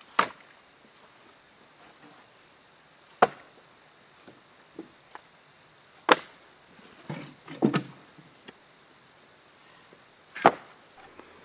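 Split mixed-hardwood firewood clacking as pieces are handled and set onto a woodpile. There are sharp wooden knocks every few seconds, with a quick run of two or three lighter knocks near the middle.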